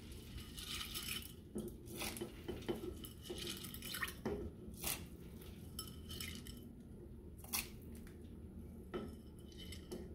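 Soaked mayocoba beans dropped by the handful from a ceramic bowl into a pot of broth: faint, irregular plops and light clinks against the bowl, about a dozen over several seconds.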